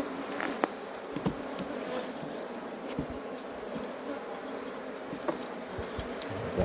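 Honey bees buzzing around an opened hive: a steady, low hum, with a few sharp clicks and knocks over it.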